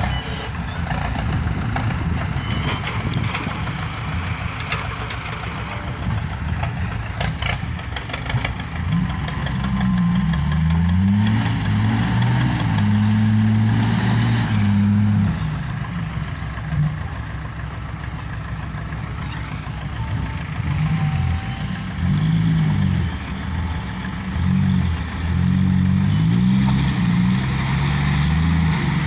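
Vehicle engine running, then revved up and down over and over from about ten seconds in, as a vehicle labours through mud.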